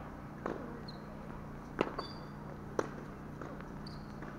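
Tennis ball being hit and bouncing on the court: a few sharp pops about a second apart, two of them much louder.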